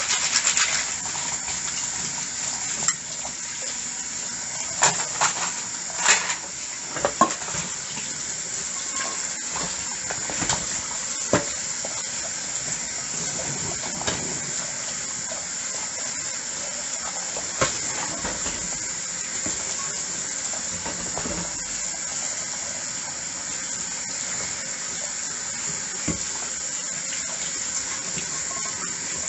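Dishes being washed under a running tap: water running steadily into the sink, with dishes clinking now and then, most often in the first dozen seconds.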